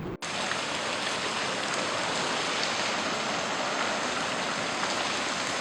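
Steady hiss of heavy rain pouring down, starting abruptly just after the beginning.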